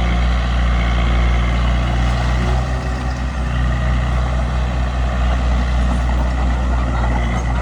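Bulldozer's diesel engine running steadily at a low, even drone, the note wavering slightly a few seconds in.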